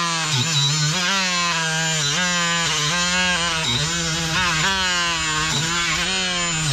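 Cordless power tool spinning an abrasive pad against a car's underbody, stripping underbody coating and rust toward bare metal. Its motor whine dips in pitch about once a second as the pad is pressed in, then recovers.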